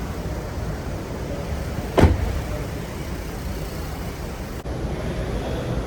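Car engine idling steadily, with a single sharp thump about two seconds in.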